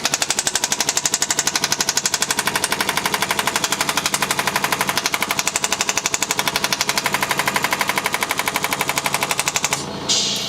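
Shockwave therapy applicator firing a rapid, even train of clicking pulses into gel on the patient's back. It stops abruptly near the end, followed by a short hiss.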